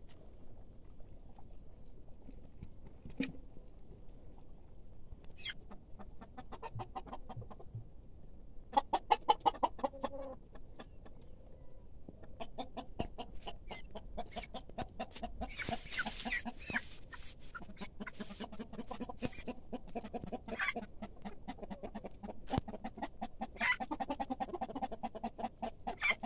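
Domestic chickens clucking in rapid runs, loudest about nine seconds in, then clucking almost without pause through the second half.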